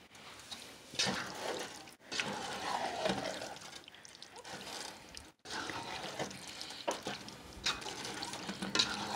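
A spatula stirring thick, cheesy penne pasta in a metal pot: wet squelching and scraping in irregular strokes.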